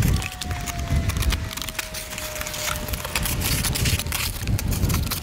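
Artisan Arroyo knife cutting through cardboard: irregular crackling and tearing of the board, with a faint tone slowly falling in pitch in the background.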